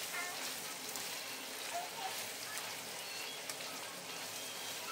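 Shredded chicken frying in a non-stick pan while being stirred with a spatula: a steady crackling sizzle.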